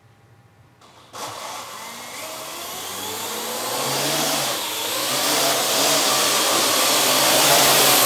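Parrot AR.Drone quadcopter's rotors spinning up suddenly about a second in, then whirring with a wavering motor whine that grows steadily louder as the drone lifts off and climbs toward the ceiling.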